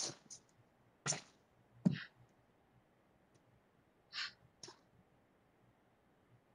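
About six short, sharp breathy bursts at irregular intervals, faint: karate students' forceful exhalations as they practise punches and kicks.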